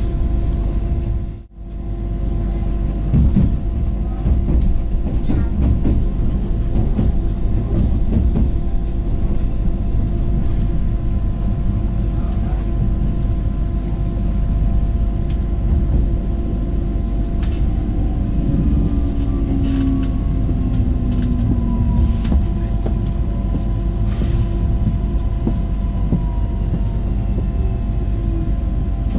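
Inside an ŁKA 36WEd electric multiple unit under way: a steady rumble of wheels on the rails with scattered clicks. The sound cuts out briefly about a second and a half in. In the second half a whine glides down in pitch as the train slows for a station.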